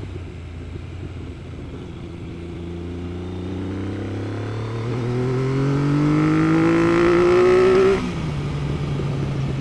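Triumph 900 three-cylinder motorcycle engine breathing through a Motad Venom 3-into-1 exhaust with its baffle removed, pulling hard: the engine note climbs steadily in pitch and grows louder for several seconds, then drops abruptly about eight seconds in to a steady lower note.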